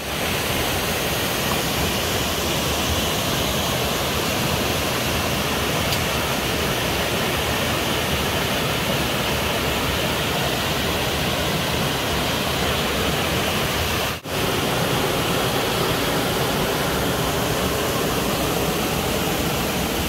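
Loud, steady rush of water from a waterfall, with no other sound standing out. The sound drops out for a moment about two-thirds of the way through, then carries on unchanged.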